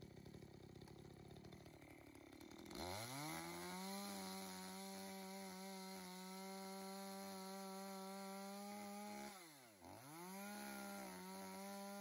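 Makita chainsaw ticking over for about three seconds, then revving up to a steady high pitch as it cuts into a log. About nine seconds in, the pitch drops sharply and climbs straight back up.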